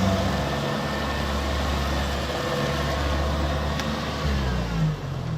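A heavy engine running steadily with a low hum; its pitch shifts a little after about four seconds, and there is a single sharp click shortly before that.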